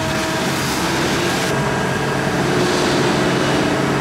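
Steady hum of heavy sheet-metal shop machinery: a few held tones over a constant hiss. The hiss changes about one and a half seconds in.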